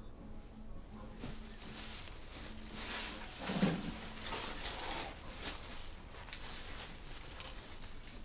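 Paper and cardboard rustling as an object is unpacked from a cardboard box, busiest a few seconds in, with a soft thump about three and a half seconds in.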